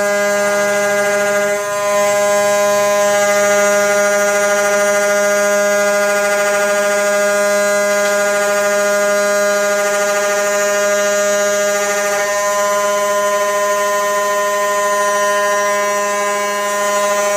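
CNC router spindle and end mill cutting aluminum: a loud, steady whine at one unchanging pitch with many overtones, briefly dipping about two seconds in.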